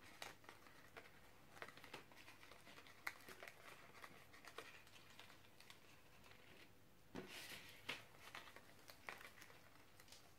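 Faint crinkling and rustling of notepaper as hands press and fold the petal tips of a glued origami flower, with scattered small clicks of paper.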